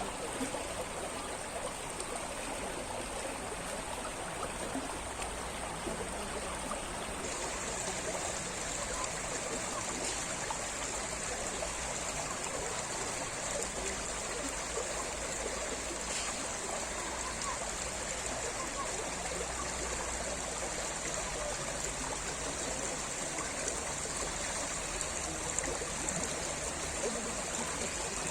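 Stream water flowing and splashing steadily over its bed.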